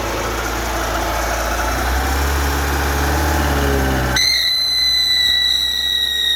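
Fiat Uno Fire engine running. About four seconds in, a steady high-pitched whine or squeal sets in suddenly. This is the noise it makes when accelerated, and it persists with the accessory belt, belt covers and timing-belt tensioner removed and the water pump replaced, so its cause is not yet found.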